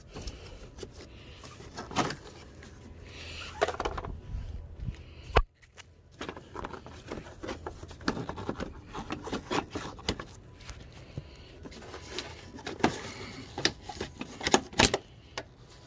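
Scattered clicks, knocks and scrapes of hard plastic engine-bay parts being handled as an air-intake tube is pulled free, with a brief dropout about five seconds in.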